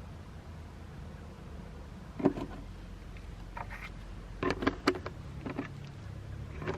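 A few sharp plastic clicks and knocks, one about two seconds in and several more near the end, as a plastic motor-oil bottle is handled after the engine has been topped up. A low steady hum sits underneath.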